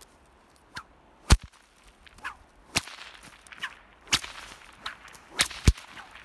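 A whip being cracked again and again: about nine sharp cracks at uneven spacing, some faint and some much louder, the loudest about a second in and near the end.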